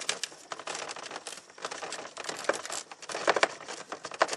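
Plastic interior door trim panel of a 1995–99 Chevy 1500 being worked off the door, a dense run of crackling, creaking and small clicks as the plastic flexes, with a few sharper snaps.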